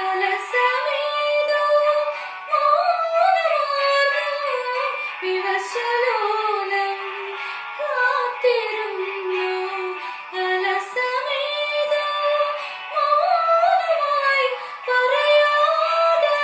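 A young woman singing a slow melody solo, holding notes and sliding between them.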